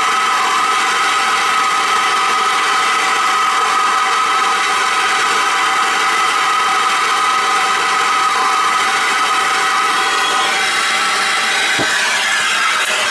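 Handheld gas torch burning with a steady hiss while it heats a copper pipe end cap to sweat solder onto the joint. Near the end the sound changes as the torch is moved off the fitting.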